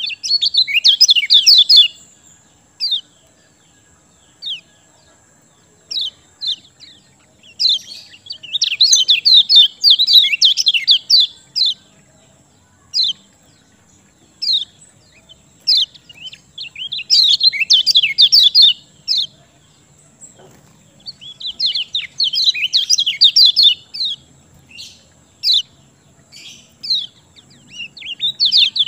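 A kecial kuning songbird singing in bouts of rapid, high chirping trills lasting a few seconds each, about five times, with single sharp chirps between the bouts. This is a 'pancingan' song recording, used to goad kecial birds that have stopped singing into song.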